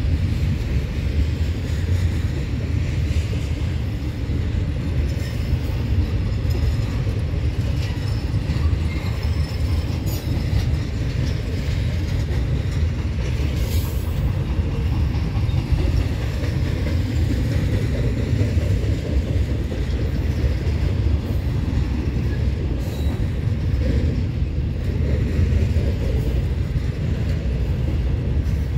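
A double-stack container freight train rolling past: a steady low rumble of wheels on rail, with faint high wheel squeals now and then.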